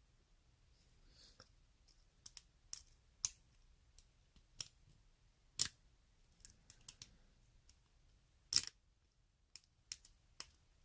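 A metal lock pick raking the wafers of a small screen-door wafer lock under tension, giving scattered sharp clicks at an irregular pace.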